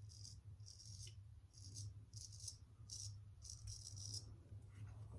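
Straight razor scraping across stubble in a series of short, light strokes, about seven faint scrapes roughly half a second apart, stopping after about four seconds.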